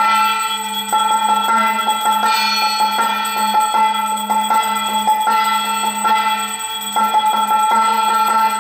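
Temple bells ringing rapidly and continuously over a steady low drone, with a stronger strike about every two seconds, as during aarti.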